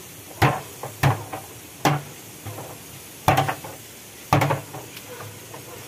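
Water being poured from a plastic drum into a large cooking pot over a steady hiss, with five sharp knocks at uneven intervals as the drum is handled against the pot.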